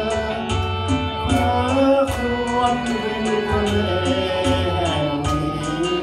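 Karaoke backing track with a steady beat of bass and drums and a melody line, with a man singing over it through a microphone.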